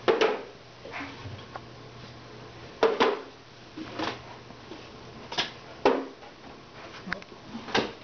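Wooden beehive frames knocking and clunking as they are handled: about eight irregular knocks, some single, some in quick pairs, spaced roughly a second apart.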